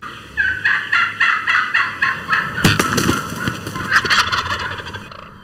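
A turkey calling in a series of repeated notes, about four a second, fading away near the end, with two sharp knocks partway through.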